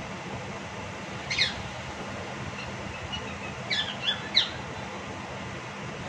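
Cockatiel giving short, shrill squawking calls: one, then a quick run of three a couple of seconds later. Typical of attention-seeking calling.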